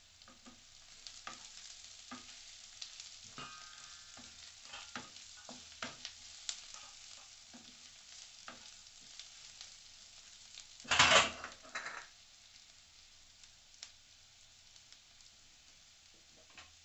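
Sliced onions frying in mustard oil in a nonstick pan, with a steady soft sizzle, while a wooden spatula stirs them, clicking and tapping on the pan. About eleven seconds in comes one sudden loud rasp lasting about half a second.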